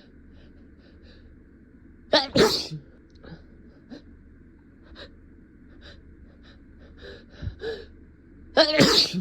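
A person sneezing loudly twice, about six seconds apart, with quieter short sounds in between.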